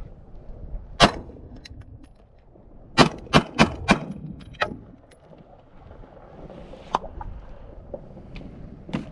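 Glock 19 9mm pistol firing: a single shot about a second in, then four quick shots in under a second, about two seconds later, until the slide locks back on an empty magazine.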